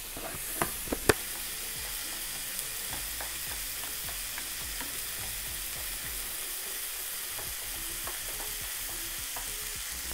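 Cauliflower steak sizzling in oil in a frying pan, a steady hiss, while a metal spoon stirs sauce in a small bowl with light clinks and scrapes. Three sharp clinks about a second in.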